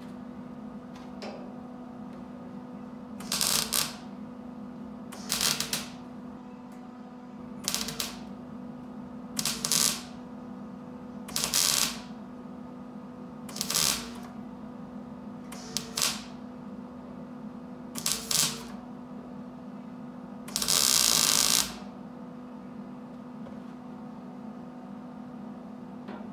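MIG welder laying short plug welds into car-body sheet metal, filling drilled-out spot-weld holes: nine bursts of welding about two seconds apart, the last one longer, over a steady low hum.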